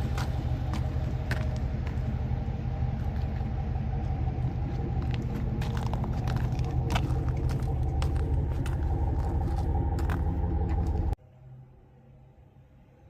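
The small engine of a homemade Snowdog tracked snow machine running steadily under way, with scattered clicks and rattles over it. It stops abruptly about eleven seconds in, leaving a faint low hum.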